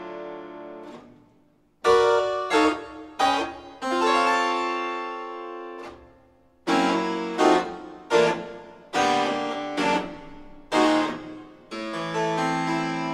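Solo harpsichord playing sharp, full chords, struck singly and in quick short groups, some left to ring and die away. The playing stops briefly into near silence about two and six seconds in.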